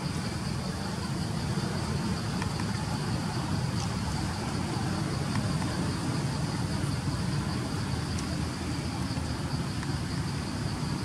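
Steady low rumble with a continuous high-pitched drone of insects above it, and a few faint ticks.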